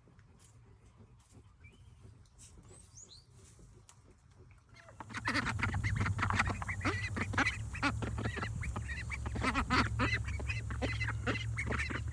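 Faint chick peeps at first; then, about five seconds in, loud, crowded calling from a group of farm waterfowl sets in over a steady low hum.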